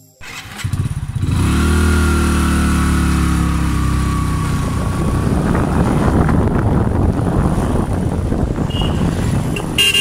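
Motorcycle engine running, its pitch easing down slightly over the first few seconds, then giving way to a steady rush of wind and road noise. A short horn toot comes near the end.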